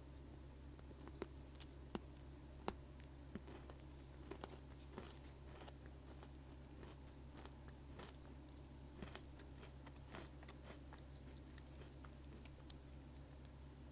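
Almond Pocky, chocolate-coated biscuit sticks with almonds, being bitten and chewed close to the microphone: a series of sharp crunches, the loudest about two and a half seconds in, then softer scattered chewing crackles over a steady low hum.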